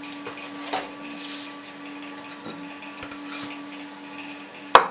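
Cheese mould lined with cloth being handled and turned over onto a plate: soft rustling of the cloth, then one sharp knock near the end as it is set down. A steady low hum runs underneath.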